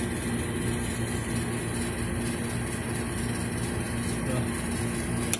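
Steady low engine-like hum, as from an idling motor, with one sharp click near the end.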